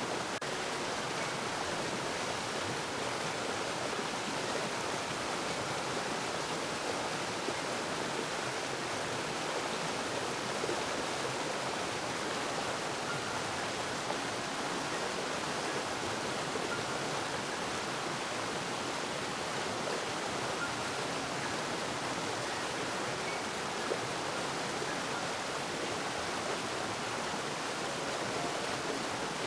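Flowing water rushing steadily, with no pauses or changes.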